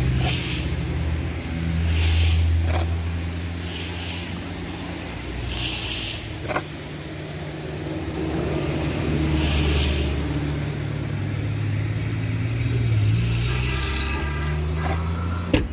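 Motor vehicle engine rumble that swells and fades several times, with short hissing swishes every couple of seconds and a sharp click near the end.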